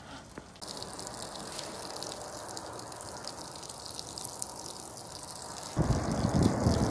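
Wind blowing on the microphone: a steady rush that turns into heavy, gusting low buffeting near the end.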